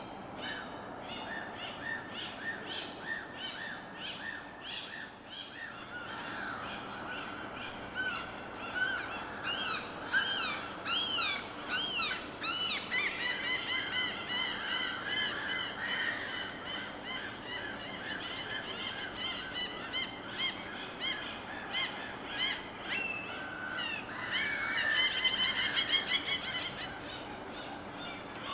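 Birds calling over and over, with a faint steady hiss of ambience beneath. A loud run of arching calls comes about a third of the way in, then a long stretch of fast chattering calls, and another loud flurry near the end.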